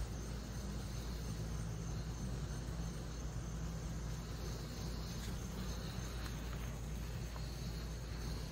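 Crickets or other insects trilling steadily in a high, thin band, over a steady low hum.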